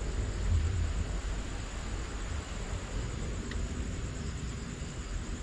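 Strong wind buffeting the microphone, a low unsteady rumble over an even rustling hiss, with a thin steady high-pitched whine running underneath.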